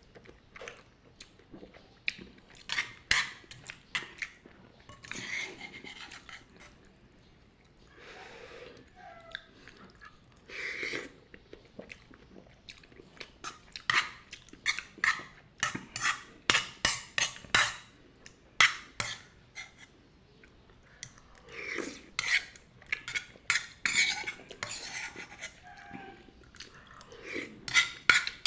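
Eating noodles out of a wok: a metal utensil clicking and scraping against the pan in quick runs of clicks, with chewing in between.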